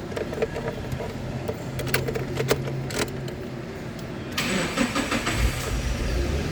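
A few light clicks and key rattles, then about four seconds in the Nissan Datsun's engine is cranked, catches and runs. It starts now that the faulty distributor behind the camshaft position sensor code P0340 has been replaced.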